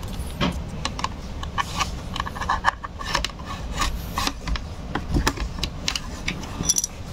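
Plastic pry pick scraping along the seam of a laptop's plastic case, with many short sharp clicks as the snap-fit clips of the keyboard cover pop loose.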